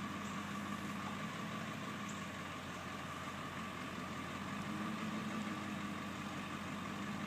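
Bucket truck's engine idling with a steady hum.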